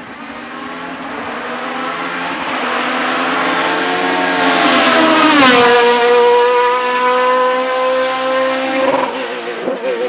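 A sports prototype race car's engine at full throttle, growing louder as the car approaches. About halfway through it passes close by with a sharp drop in pitch, then holds a steady high engine note as it pulls away. Near the end the engine note falls and there are a few sharp crackles.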